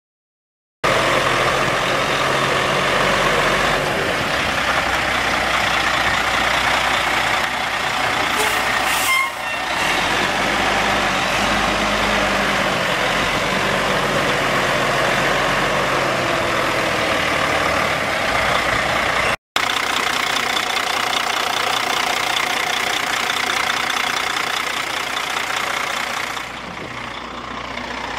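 Semi truck's Caterpillar C12 inline-six diesel engine idling steadily, with a brief break about two-thirds of the way through.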